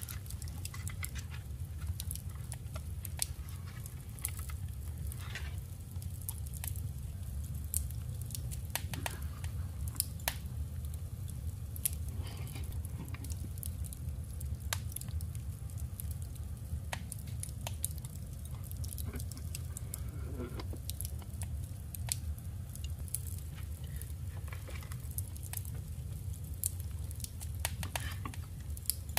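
Paper and scrapbooking materials being handled: scattered small clicks, taps and rustles of paper, over a steady low hum.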